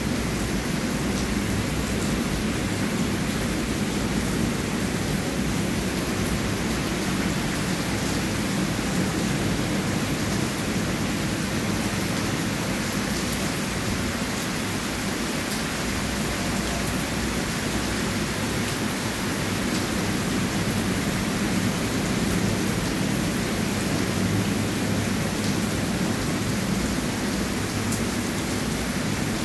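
Steady heavy rain falling, an even hiss with faint drop ticks and a low rumble underneath.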